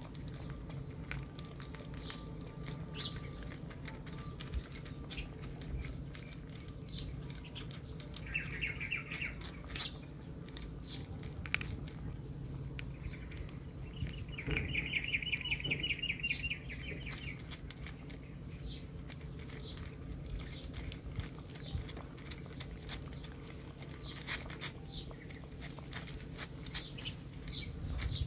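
A puppy lapping and licking milk and ice from a plastic bowl, with scattered wet clicks and small ticks. A rapid chirping trill sounds twice, briefly about eight seconds in and longer from about fourteen to seventeen seconds in.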